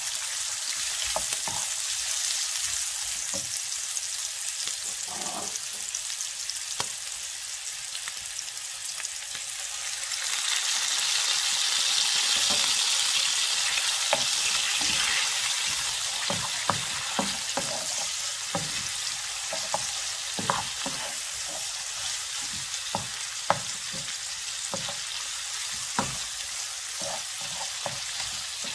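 Sliced duck breast sizzling in hot oil in a black frying pan, stirred with a slotted wooden spatula that knocks and scrapes against the pan now and then. The sizzle swells louder for a few seconds about a third of the way in, and the knocks come more often in the second half.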